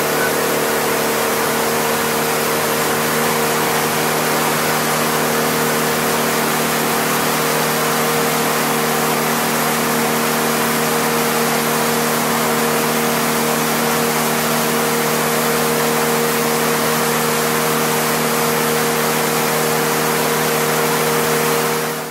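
Passenger speedboat's engine running steadily at cruising speed, a constant drone over the hiss of rushing water and wind; it fades away at the very end.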